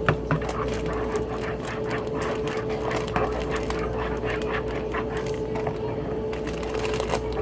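Cake batter being stirred in a mixing bowl, the utensil ticking and scraping against the bowl in quick, irregular strokes, over a steady hum.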